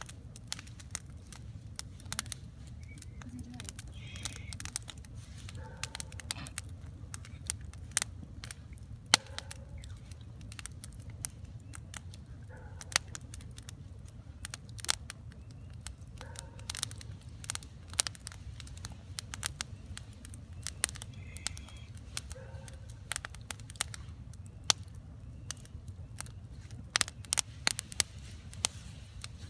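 Wood campfire crackling: irregular sharp pops and snaps from the burning logs, dense in places, over a steady low rumble.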